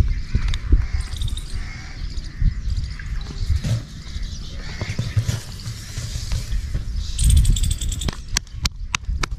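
Birds chirping and calling, over uneven low rumbling and a few soft thuds, with a run of sharp clicks near the end.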